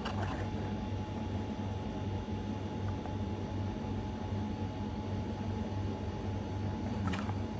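Steady low hum with a faint steady whine and background hiss, like room machinery such as a fan or air conditioner. A brief click or rustle comes about seven seconds in.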